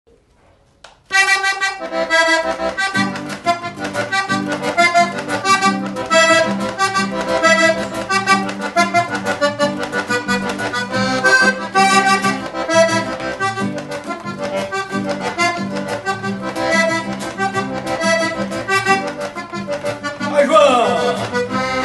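A diatonic button accordion plays a lively, rhythmic instrumental introduction to a gaúcho song, with an acoustic guitar strumming the accompaniment. The music starts about a second in, and a fuller low accompaniment joins about two seconds later.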